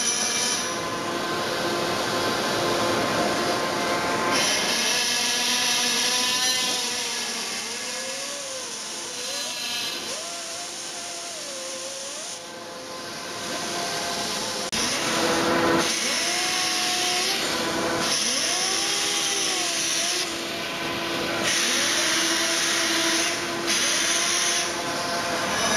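Pneumatic die grinder and disc sander working the surface of a bronze sculpture: a loud air hiss with a whine that dips and rises in pitch as the tool bears on the metal. There is a brief lull about halfway through.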